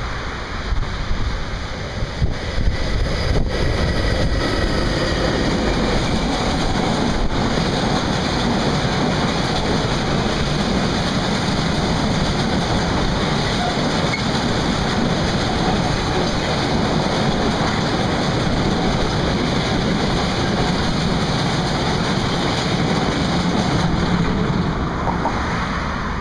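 760 mm narrow-gauge diesel freight train passing close by: the locomotive followed by a long string of log-laden standard-gauge wagons riding on narrow-gauge transporter wagons, with a steady rumble of wheels on the track and a few clunks in the first several seconds. Wind buffets the microphone.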